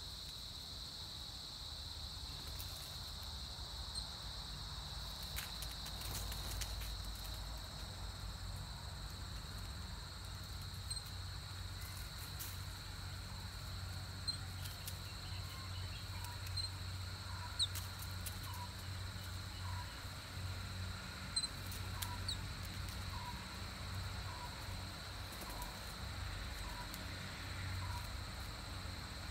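Insects chirring in a steady high-pitched drone in woodland. From about halfway through, a short note repeats about once a second, and there are scattered faint clicks.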